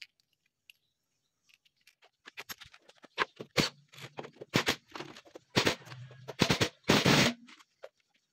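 Cordless impact wrench hammering on a car wheel's lug nuts to loosen them. Starting about two seconds in, it runs in roughly half a dozen short bursts of rapid impacts, with the motor's low hum beneath.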